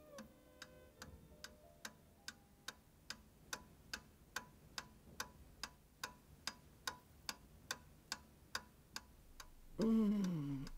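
A clock ticking steadily, about two and a half ticks a second, while the last notes of violin music fade out at the start. Near the end comes a short voice sound that falls in pitch.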